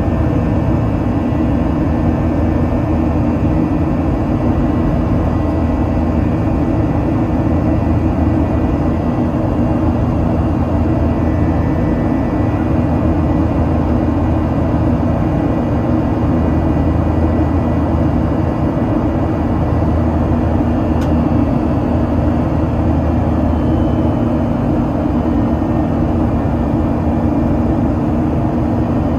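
Inside the cabin of a Boeing 737-800 climbing after takeoff: its CFM56-7B turbofan engines running steadily, a constant dense rumble with a low, even hum.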